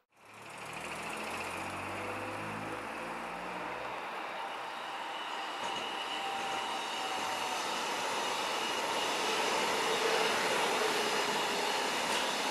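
SBB Giruno (Stadler SMILE) electric train passing, its rolling noise growing steadily louder as it nears, with a steady high whine over the rush of the wheels.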